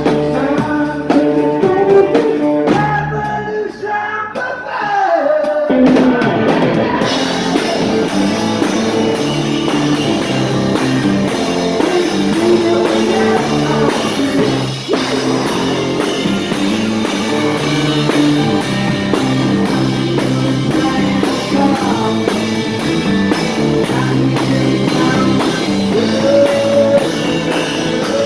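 Rock band playing live: electric guitar, drum kit and singing. After a thinner passage with sliding notes, the full drum beat with steady cymbal strokes comes in about seven seconds in.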